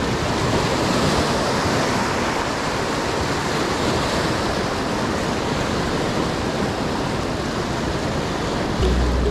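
Surf breaking and washing over a rocky shore: a steady rush of water. Music comes in near the end.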